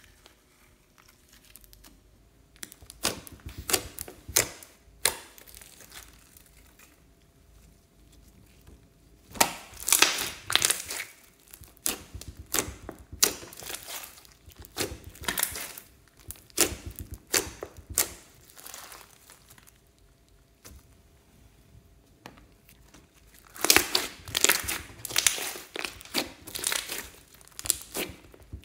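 Sticky slime being squished and kneaded by hand: runs of wet crackling and popping clicks, a short run a few seconds in, a long one from about a third of the way, and another near the end, with quieter pauses between.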